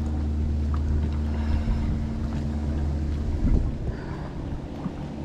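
A boat's motor running with a steady low hum, which cuts out about three seconds in, followed by a short low knock.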